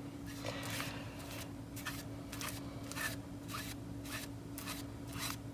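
A brush spreading Mod Podge over a fabric-wrapped tumbler, giving short scraping strokes about twice a second.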